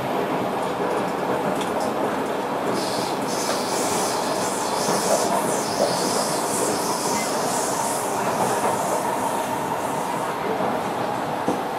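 Interior running noise of a Kawasaki Nippon Sharyo C751B metro train at speed: a steady rumble of steel wheels on rail, heard from inside the passenger car. A high-pitched wheel squeal rises about three seconds in and fades out around eight seconds.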